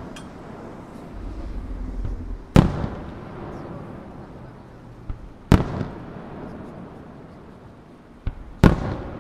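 Aerial firework shells bursting: three loud booms about three seconds apart, each trailing off in a reverberant tail, with a lighter bang shortly before the second and third.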